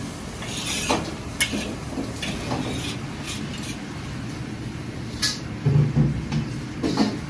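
Busy commercial kitchen background: a steady low hum, with scattered light clinks and knocks of dishes and utensils and a few heavier knocks about two-thirds of the way in.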